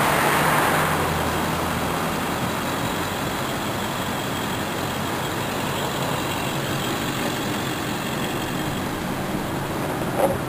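Steady motor-vehicle noise from a truck's engine running, a little louder in the first second, with one short knock near the end.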